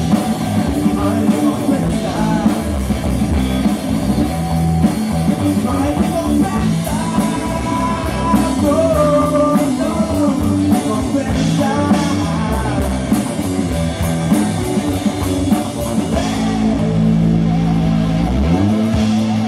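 Rock song played by a band: electric guitar and drum kit with a singing voice over them.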